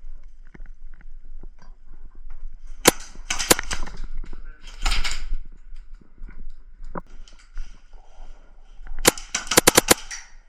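Airsoft guns firing: a sharp shot about three seconds in, a quick string of shots right after, then a rapid burst of about seven shots near the end.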